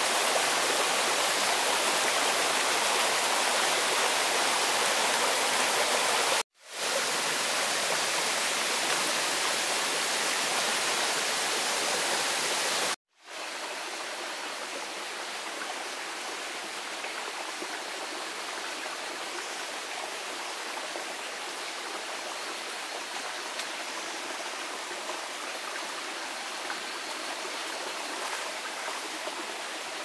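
Steady rush of water from a shallow rocky stream. It cuts out abruptly twice, about six and thirteen seconds in, and comes straight back each time, quieter after the second break.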